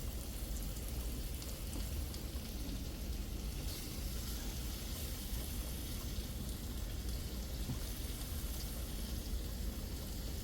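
Chicken frying in oil in a pan: a steady sizzle with fine crackling, over a low steady hum.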